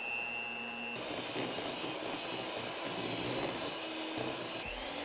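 Electric hand mixer running steadily, its beaters whipping cream cheese, butter and powdered sugar into a glaze in a glass bowl. A high whine in its sound drops out about a second in.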